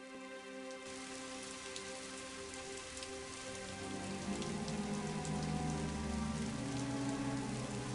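Steady rain falling on wet stone and open water, with many separate drop ticks. A soft sustained music chord lies underneath, its lower notes growing stronger about halfway through.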